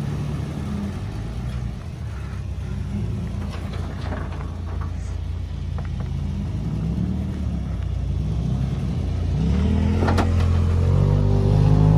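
Toyota Tacoma pickup's engine running at low revs as the truck crawls over rocks, revving up and growing louder near the end.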